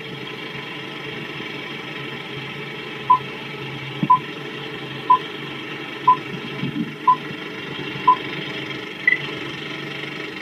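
Countdown beep sequence over a steady hiss: six short beeps at the same pitch, one a second, then a single higher beep. The sound cuts off suddenly at the end.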